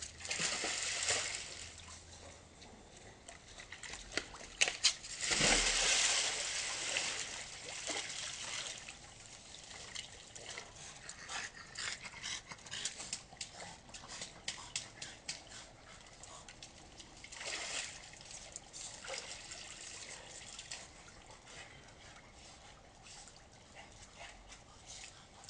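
Water splashing and sloshing in a backyard hot tub as a French bulldog puppy falls in and a man jumps in to lift her out, picked up by a security camera's microphone. The loudest splash comes about five seconds in, and a dog whimpers among scattered smaller splashes.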